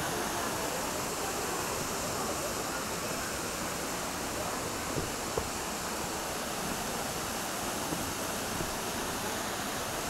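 Kurşunlu waterfall's water falling into its pool: a steady, even rush, with a couple of faint clicks about halfway through.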